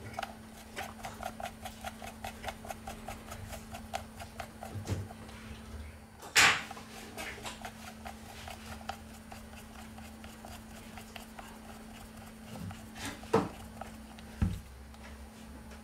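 Precision screwdriver turning the small bottom pentalobe screws of an iPhone XS Max, making a quick, even run of small clicks, about five a second. A louder sharp click comes about six seconds in, and two more sharp clicks near the end.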